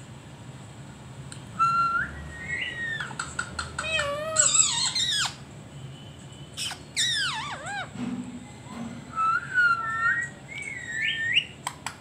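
Indian ringneck parakeet whistling and calling: a run of short calls that slide up and down in pitch, with short gaps between them.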